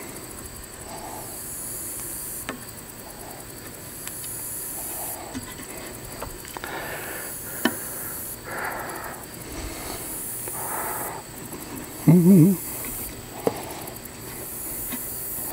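Insects buzzing in high, pulsing stretches that switch on and off every second or two, with a few faint clicks as the bucket and bell waterer are adjusted on a metal rack. A short wavering voice-like note comes about twelve seconds in.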